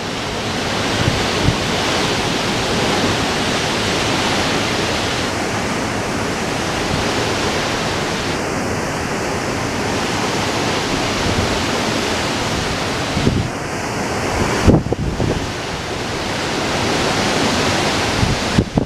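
Strong wind blowing over the microphone: a steady rushing noise with gusts buffeting the mic, the hardest gust a little under fifteen seconds in.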